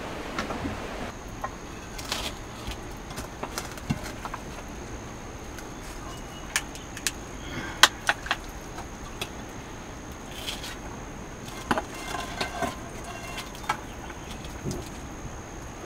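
Metal ladle and steel plates clinking and scraping as cooked rice is scooped from a pot and served: a dozen or so scattered sharp clinks over a steady low hiss.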